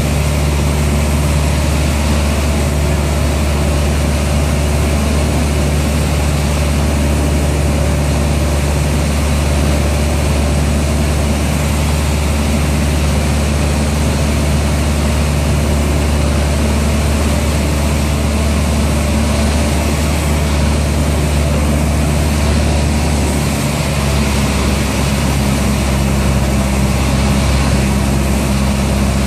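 Single-engine propeller airplane's piston engine and propeller running steadily in flight, a loud drone heard from inside the cockpit. Its tone shifts slightly about three-quarters of the way through.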